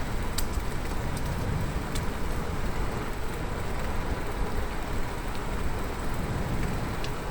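Riding a bicycle: wind rushing over the microphones and tyres rolling on the road, with a few faint clicks.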